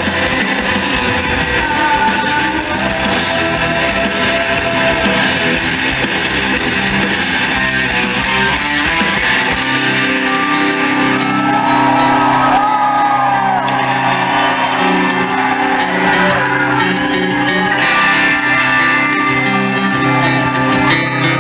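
Live hard rock band playing an instrumental passage on distorted electric guitar, bass guitar and drums. About ten seconds in, the drums drop back and the low end thins, leaving sustained bass notes under guitar lines with bent notes.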